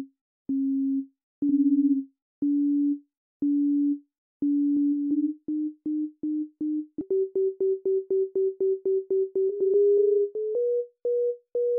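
Sine-wave synth notes from UVI Falcon's wave sequencer, sounding as short pure-tone beeps with a click at each start. They pulse about once a second at first, then quicken to about four a second, and the pitch steps up twice in the second half.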